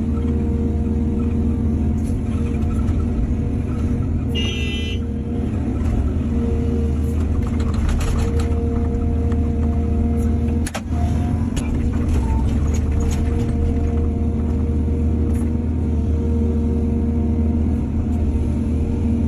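Excavator's diesel engine running steadily with a low rumble. A short high squeal comes about four and a half seconds in, and a few knocks and clanks follow around eight and eleven seconds.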